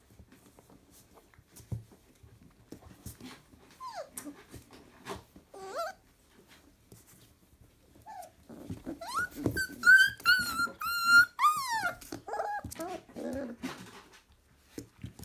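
Four-week-old Labrador Retriever puppies play-fighting: scuffling, with a few short whines and cries, then about nine seconds in a loud run of high-pitched yelps ending in a falling cry, followed by lower whimpers. These are the squeals of a puppy bitten too hard by a littermate that has not yet learned bite inhibition.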